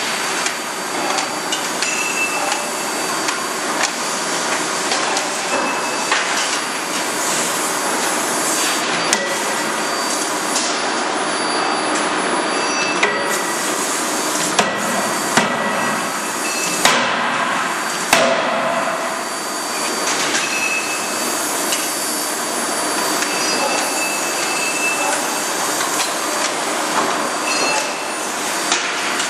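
Forge shop machinery working hot steel: a continuous loud mechanical din broken by sharp metal blows, several of the loudest about halfway through.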